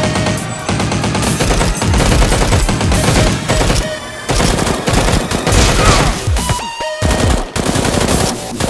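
Rapid bursts of automatic gunfire sound effects, shots in quick succession, over background music.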